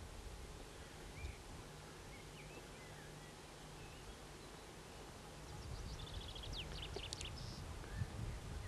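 Small songbirds calling faintly, with a few short chirps and then a rapid trill of high notes from about five and a half to seven and a half seconds in. Beneath them runs a steady hiss and hum, with a couple of low knocks near the end.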